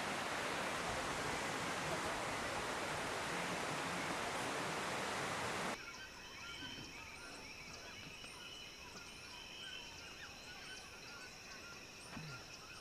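Steady rushing water, then an abrupt cut about six seconds in to quieter nature ambience: insects trilling steadily on high notes, with short chirps repeated about once a second.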